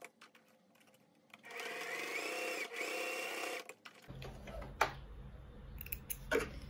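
Electric sewing machine stitching fabric onto a paper tag: it stops, a few small clicks follow, then it stitches again for about two seconds, speeding up before it stops. Near the end come two sharp snips as thread snips cut the loose threads.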